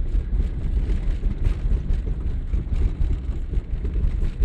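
Steady low road and engine rumble heard from inside the cabin of a moving car.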